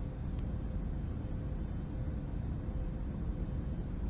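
Steady low rumble of airliner cabin noise, with a faint steady hum.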